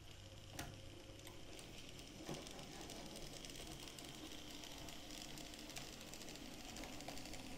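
OO gauge model locomotive running along the track, its small electric motor and gears whirring steadily, with a couple of sharp clicks from the wheels over rail joints or points.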